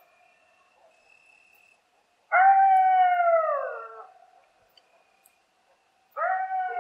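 Coyote howling: one long howl about two seconds in, held and then falling in pitch at its end, and a second howl starting near the end.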